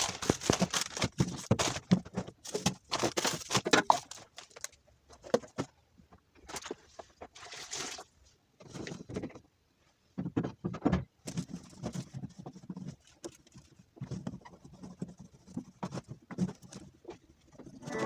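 Irregular knocks, clinks and short rustling or splashing noises from hands at work with containers and a basin of cleaning water.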